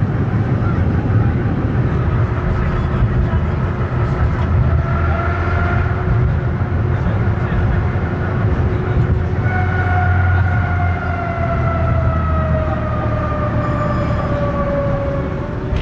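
Vintage tram running along the tracks with a steady rumble from wheels and running gear. A motor whine joins about halfway through and slides slowly down in pitch near the end.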